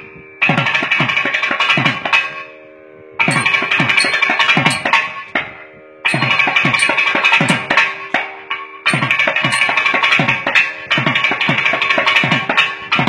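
Thavil solo: rapid flurries of sharp, cracking strokes mixed with deep bass strokes that drop in pitch, played in four phrases broken by short pauses. A steady drone note sounds underneath.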